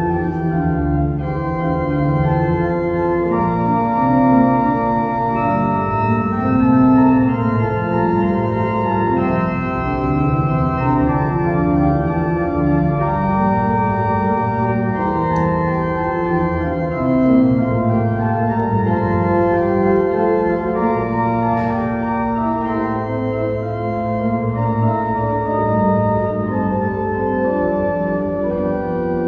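Organ music playing slow, sustained chords, several notes held together and shifting every second or two.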